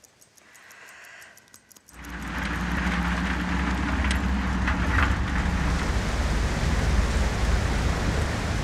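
Rumble and hiss of a moving truck, heard from inside its covered back. It starts suddenly about two seconds in, with a few light knocks near the middle.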